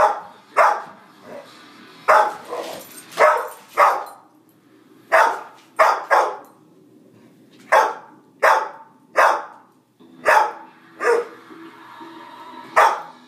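Dog barking over and over, about fifteen short, sharp barks at roughly one a second: demand barking at another dog for its bone.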